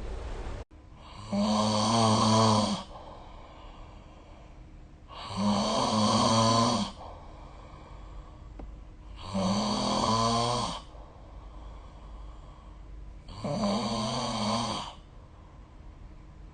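A person snoring in sleep: four snores, each about a second and a half long, coming about every four seconds, with quieter breathing in between.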